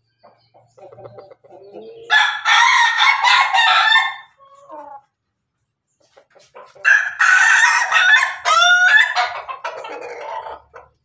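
Rooster crowing twice, first at about two seconds in and again, longer, from about seven seconds in. Softer clucking comes before the first crow.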